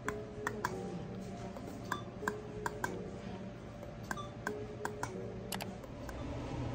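Oligio radiofrequency skin-tightening machine firing pulses through its handpiece on the eye area: sharp clicks every half second to a second, several of them with a short low beep, over a steady low hum.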